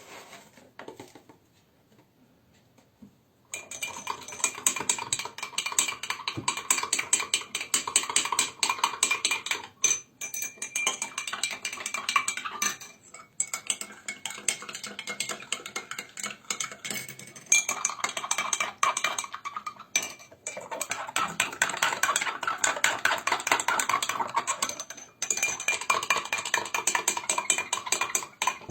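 A metal spoon stirring rapidly in a glass, clinking against the sides with a faint ringing, in several bouts with short pauses between them.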